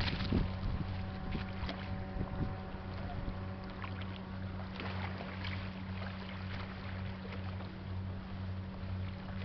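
Tugboat's diesel engine heard across the water: a steady low hum with a slow, regular throb. Wind noise and a few handling knocks on the microphone.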